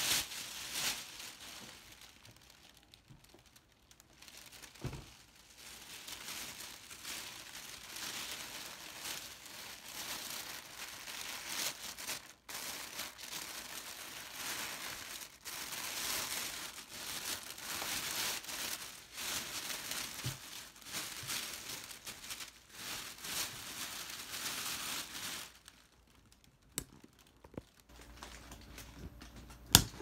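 A clear plastic gift-basket bag crinkling as it is handled and worked down over a basket, in long stretches with brief lulls near the start and near the end. A single sharp knock comes just before the end.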